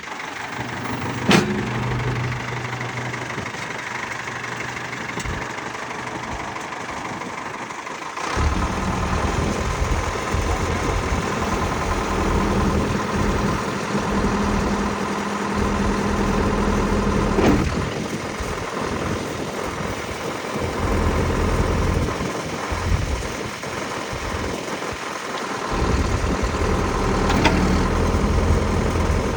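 Ford 555D backhoe's diesel engine running, its note getting heavier and louder about eight seconds in and again near the end, with three sharp knocks along the way.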